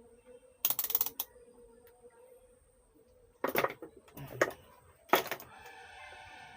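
Sharp clicks and clinks of small parts and test gear being handled on a workbench: desoldered resistors and a multimeter being readied for a resistance check. The last click, about five seconds in, is followed by a short steady buzzing tone.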